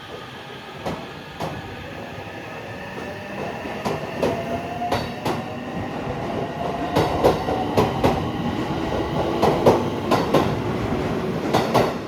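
A train passing close on the station tracks, growing louder, with its wheels clicking over rail joints more and more often and a whine that slowly rises in pitch.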